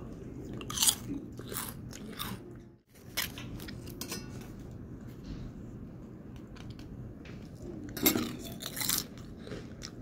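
Crisp papad (poppadom) being bitten and chewed close up, crunching in short crackles, with the loudest crunches about a second in and again near the end.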